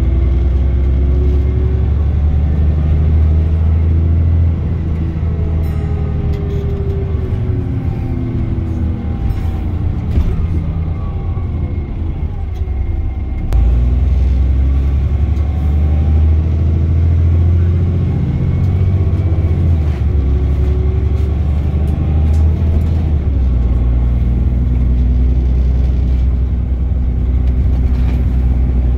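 Diesel engine and Voith automatic gearbox of a VDL DB300 Wright Gemini 2 double-decker bus, heard from the lower deck while it drives: a heavy low rumble with whining notes that rise and fall in pitch, and a sudden deeper surge about halfway through as it pulls harder.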